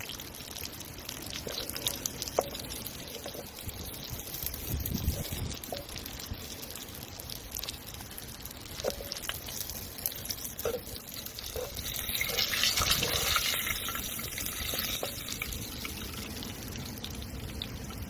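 Water pouring and trickling, with small clicks and splashes throughout and a louder rush of hiss about twelve seconds in.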